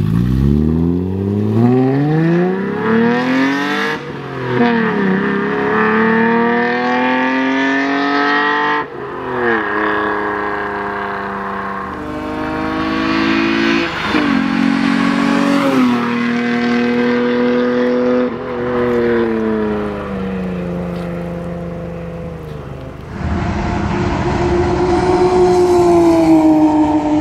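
Mazda K-series V6 engine revving hard as the car accelerates, its pitch climbing and then dropping sharply at each gear change, several times over. Near the end the sound cuts to a different engine holding a steadier note.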